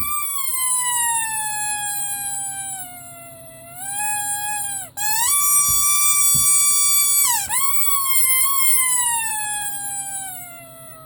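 Rubber squeaky toy squeezed slowly, giving long drawn-out squeaks: three in a row, the first and last sliding slowly down in pitch, the middle one held steady, each broken by a quick dip in pitch.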